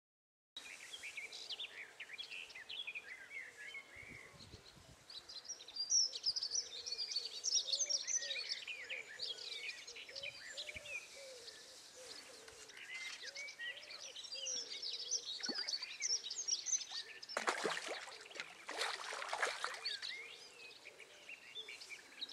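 Several birds singing and chirping throughout, with two short noisy bursts about three-quarters of the way through.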